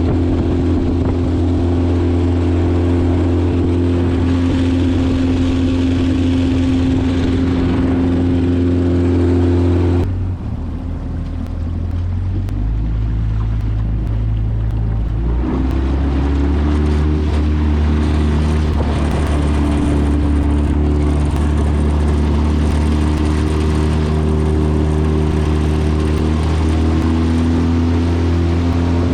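Motorboat engine running steadily under way. It eases off about ten seconds in, then rises back to speed about five seconds later.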